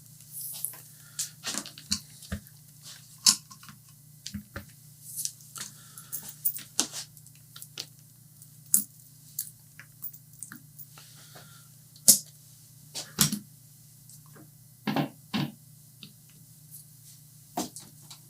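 Irregular clicks, taps and light knocks of a multimeter, its probe leads and a newly made DC power cable being handled and set up on a workbench, with a few soft rustles and a faint steady low hum underneath.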